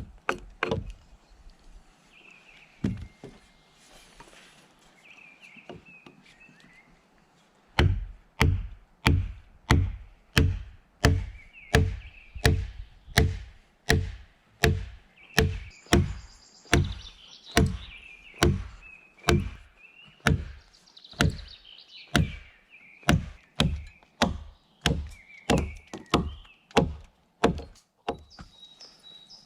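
Hammering: a few scattered knocks, then from about eight seconds in a steady run of heavy blows, about two a second, driving a nail into wood.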